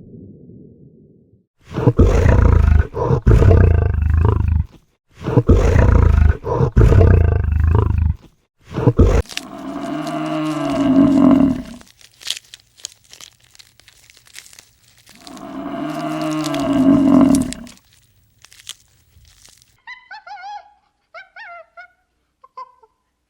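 Animal vocalising: two long, loud, rough roars, a short grunt, then two drawn-out calls that bend in pitch. Faint bird chirps come near the end.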